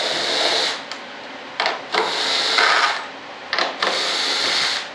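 Cordless drill run in three bursts of about a second each, each one preceded by a short click or two.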